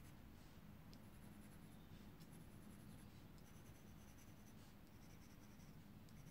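Faint scratching of a graphite pencil on a paper tile, in short strokes laying down shading, over a low steady hum.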